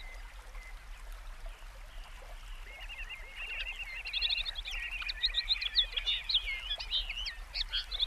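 Birds chirping and calling in a busy chorus of short, high chirps. It grows denser and louder about three seconds in, over a faint background hiss.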